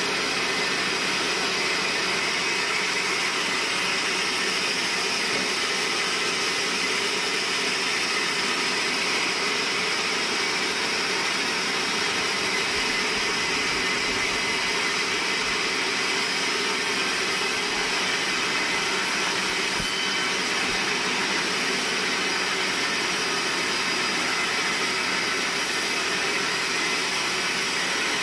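Band sawmill running steadily, its blade sawing through a large log with an even, unbroken whining hiss.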